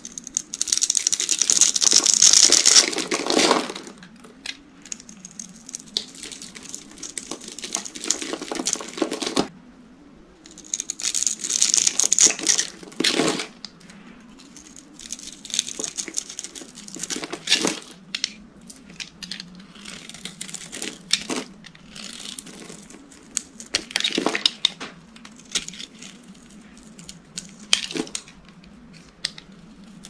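A utility knife cuts into a scored bar of dry soap and snaps off its small cubes with a crisp crunching and crackling. The crunching comes in bursts a few seconds long, with scattered sharp clicks between them.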